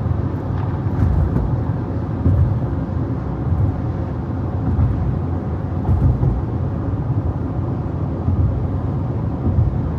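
Steady low rumble of tyres and engine inside a moving car's cabin.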